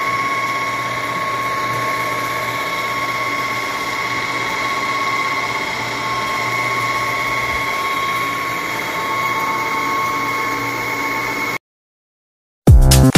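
Electric pipe threading machine running steadily as it threads a 2½-inch steel pipe, a constant mechanical drone with a steady whine. It cuts off suddenly about eleven and a half seconds in.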